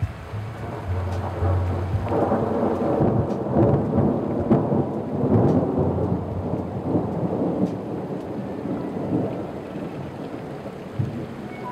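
A long roll of thunder over steady rain: it builds about two seconds in, rumbles and crackles for several seconds, and fades out near the end.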